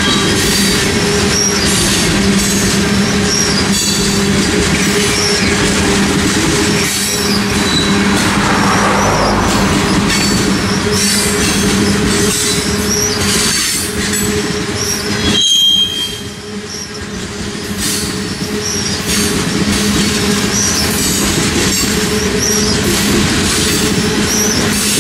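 Freight train of tank cars rolling past at close range: a steady rumble of steel wheels on rail with repeated clicks over the rail joints and intermittent high-pitched wheel squeal. It goes briefly quieter about two-thirds of the way through.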